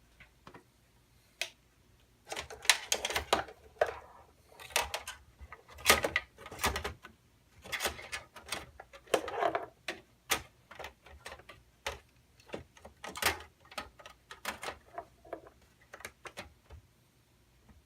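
Hands working on computer hardware: irregular clicks, taps and short scrapes of metal and plastic parts being handled and fitted, with a few longer rustling scrapes in between.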